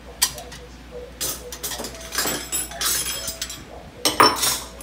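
Stainless-steel hand-lever citrus press being handled: a series of metal clinks and knocks as orange peel is repositioned and a wedge is loaded into its cup, loudest near the end.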